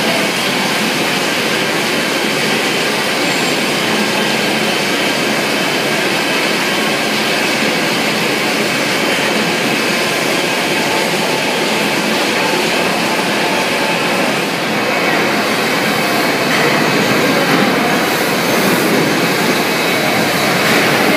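Steady, loud din of poultry-processing-line machinery, an even rushing noise with no clear tone or beat.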